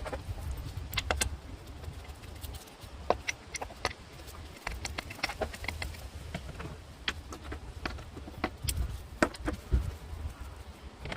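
Irregular metallic clinks and knocks of hand tools and parts being handled during engine work, a dozen or so sharp taps spread unevenly, over a low rumble.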